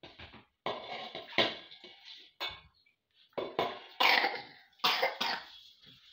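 A person coughing in a run of short bursts, the loudest about a second and a half in and about four seconds in.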